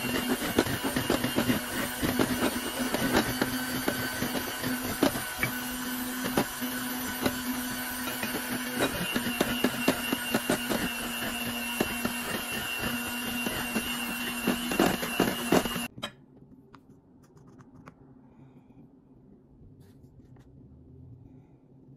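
Electric hand mixer running in a glass bowl, beating butter and mashed banana into batter: a steady motor hum with many knocks and rattles of the beaters against the bowl. It cuts off abruptly about three quarters of the way through, leaving only faint light taps.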